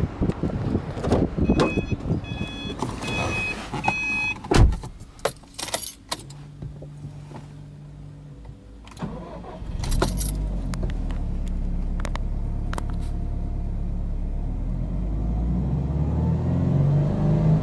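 A car's electronic chime beeping several times, a door thumping shut, then a few clicks and a short low hum with the ignition on. About ten seconds in, the Subaru Impreza WRX STI spec C's 2.0-litre turbocharged boxer four starts and settles into a steady idle, picking up a little near the end.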